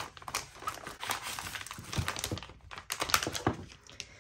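Holographic foil zip-lock bag crinkling as it is handled and opened, with irregular light clicks and taps as the paper inside is pulled out and laid on the table.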